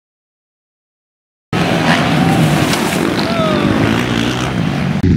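Silence for about the first second and a half, then a racing ATV's engine revving hard as the quad tumbles over on a wooded hill climb.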